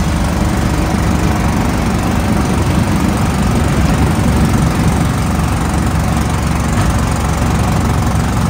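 Small engine of a motorized three-wheeled passenger cart running steadily under way, a low, even drone with a fast pulse.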